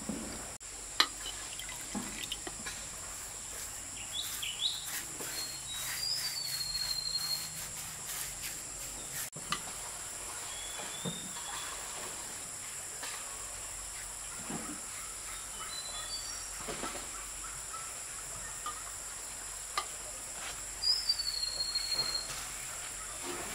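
Outdoor rural ambience: birds giving short whistled chirps now and then over a steady high insect drone, with scattered light knocks and taps, the sharpest about a second in.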